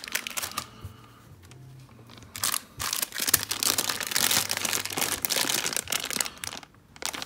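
A thin clear plastic bag crinkling and rustling as hands grip it and pull at its opening. It is softer for the first couple of seconds and then becomes busier and louder from about two and a half seconds in.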